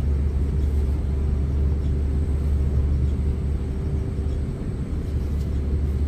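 A steady low rumble with a faint, even hum above it, with no start-up surge. The compressor has not yet tried to start.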